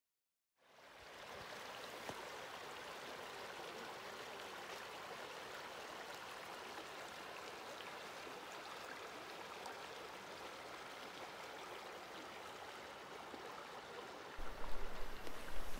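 Creek water running, a steady, even rush that fades in about half a second in. Near the end, low rumbling thumps join it.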